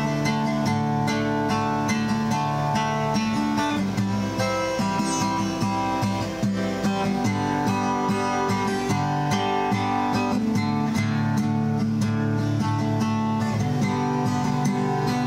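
Guitar strummed in a steady rhythm, moving through a song's chord changes.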